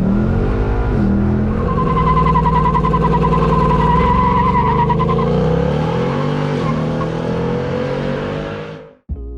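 Car engine running hard, its pitch dropping briefly and then climbing steadily as it accelerates. A high wavering squeal runs for about three seconds in the middle. The sound cuts off abruptly near the end.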